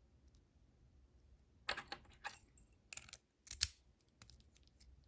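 Small metal clicks and scrapes of a padlock core being handled as its retaining C-clip is fitted back on, starting about a second and a half in, with the sharpest click about three and a half seconds in.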